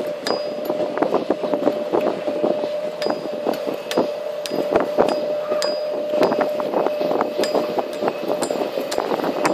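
Buggy driving along a concrete track: a steady motor whine at one pitch, with frequent sharp rattles and knocks from the vehicle as it rolls over the paving.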